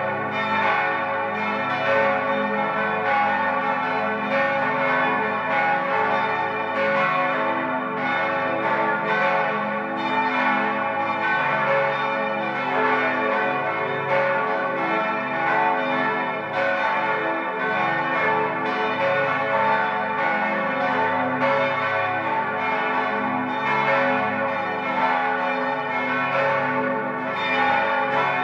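Five church bells (bells 2, 4, 5, 6 and 8, tuned a°, c♯′, e′, f♯′ and a′) swing-ringing together, their strikes overlapping in a steady, unbroken peal that calls to Vespers.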